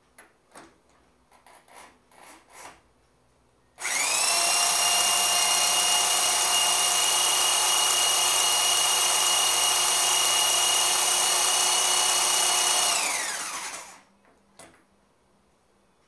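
An electric drill spins a bare 1926 Model T Ford four-cylinder engine over at about 1100 RPM to work the valve train. It comes up to speed quickly, runs with a steady whine for about nine seconds, then winds down. A few light knocks come before it starts.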